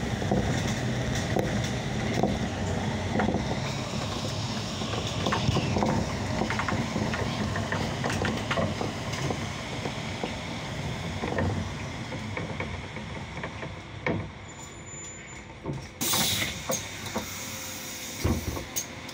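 Interior of a Solaris Urbino 18 III articulated city bus in motion: running and rolling noise with rattles, growing quieter as the bus slows. About three seconds from the end comes a sharp hiss of compressed air, then a thump and a second, shorter hiss.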